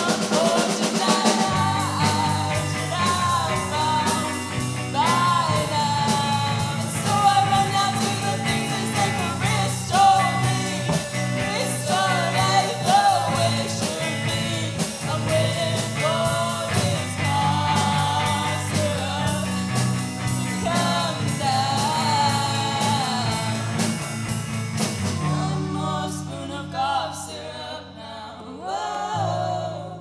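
Live rock band playing: a young woman singing lead over electric guitar, bass guitar and drum kit. The playing thins out and quietens over the last few seconds.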